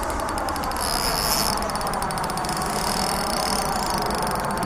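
Spinning fishing reel ticking rapidly in the first second as a carp is played on a feeder rod, over a steady rushing background noise. From about a second in, a high steady insect buzz joins it.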